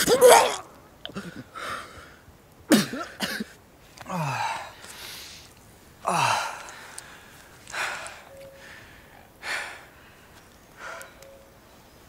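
A man retching and gagging over and over, about seven heaves one to two seconds apart. Each heave is a strained vocal sound falling in pitch with a rasping burst, and they grow weaker toward the end: the nausea that can follow eating psilocybin mushrooms.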